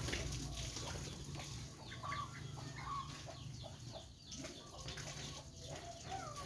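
Birds giving short, scattered calls, some sliding in pitch, with a few clicks and a low steady hum underneath.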